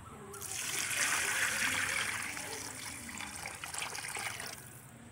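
Water poured from a metal vessel into a large aluminium cooking pot of rice and masala, splashing steadily: the cooking water going in for a pulao. The pour starts just after the opening, is loudest in its first half and tails off near the end.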